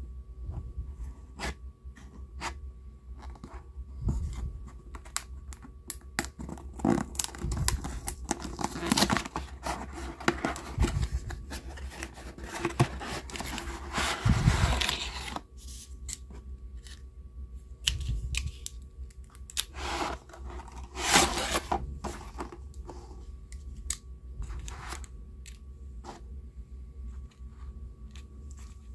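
Hands opening a cardboard cake box: card flaps tearing and scraping, packaging crinkling, and scattered taps and clicks as the box and cake cases are handled. The longest stretch of tearing and rustling falls in the middle, with another loud burst about three quarters of the way through.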